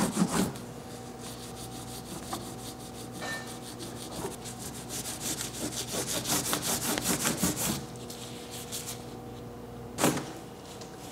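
Microfiber cloth rubbing back and forth over a carved mirror frame in quick scrubbing strokes, buffing Rub 'n Buff into the gilding; the strokes are densest and loudest in the middle, with a brief louder scuff about ten seconds in.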